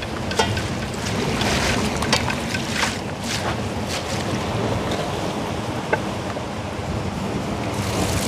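Sea surf and wind buffeting the microphone, a steady rushing noise, with a few sharp clicks scattered through.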